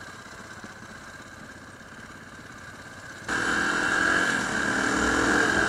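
Single-cylinder four-stroke engine of a KTM 525 EXC idling low and quiet at the lights; about three seconds in it jumps much louder as the bike is ridden along, engine pitch rising under acceleration, with wind rushing over the helmet microphone.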